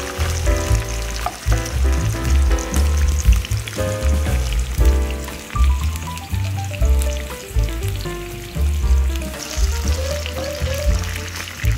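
Red bell pepper strips sizzling as they fry in oil in a nonstick pan, stirred now and then with a wooden spoon. Background music with a pulsing bass line plays over the sizzle.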